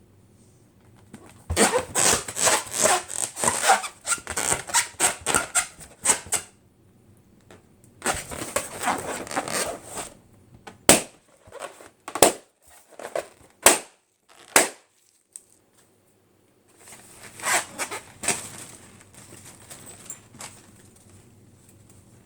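Balloons being handled, making bursts of rapid crackling. Midway there are four sharp, loud snaps in a row.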